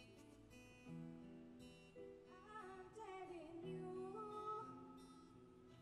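Acoustic guitar playing sustained chords, with a female voice singing a melody that comes in about two seconds in; a live acoustic pop-rock cover, heard quietly.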